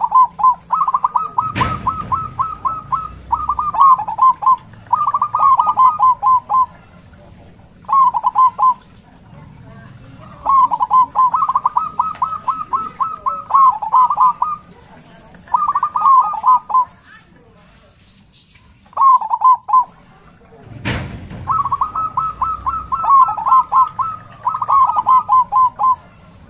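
Zebra dove (perkutut) singing: bouts of rapid, bubbling coos, each a few seconds long with short pauses between. Two sharp knocks cut in, one about two seconds in and one about twenty-one seconds in.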